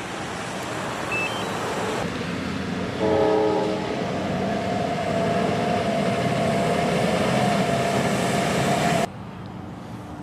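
Vehicles passing on a rain-wet road with tyre hiss. About three seconds in, an ambulance horn sounds a short blast, followed by a steady held tone that cuts off suddenly about nine seconds in.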